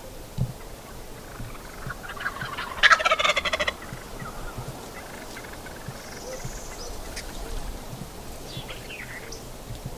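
Wild turkey gobbler gobbling once, a loud rapid rattling call of about a second, roughly three seconds in. A few faint songbird chirps follow.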